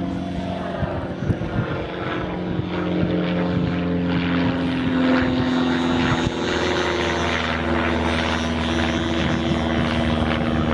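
Fuel-burning engine of a Seagull Super Stearman radio-controlled model biplane running at steady power, its propeller note rising slightly over the first few seconds and then holding. There are a couple of brief knocks about a second in.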